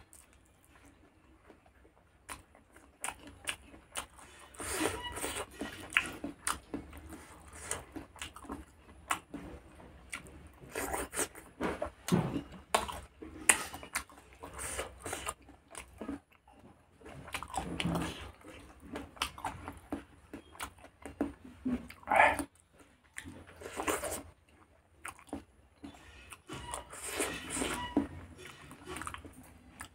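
Close-miked chewing of pork curry and rice eaten by hand: wet mouth clicks, smacks and bites in irregular bursts, starting about two seconds in.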